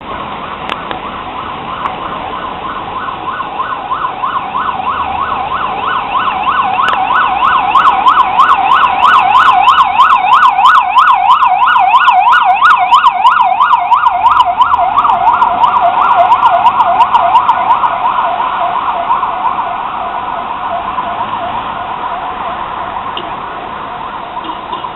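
Ambulance electronic siren on yelp: a fast, repeating rise and fall in pitch, signalling an emergency response. It grows louder, is loudest from about eight to seventeen seconds in, then fades away.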